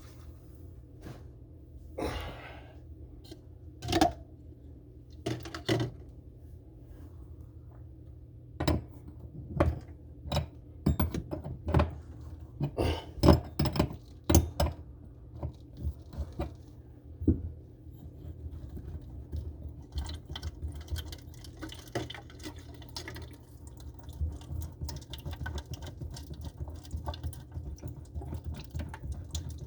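Irregular metallic clicks and knocks of a wrench working the faucet's supply-line nuts, with water dripping; the knocks come thickest in the middle.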